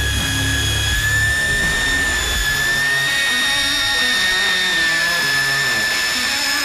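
Daiwa electric deep-drop reel's motor whining steadily as it winds in line, the pitch wavering slightly with the load. Background music with a low bass line plays underneath.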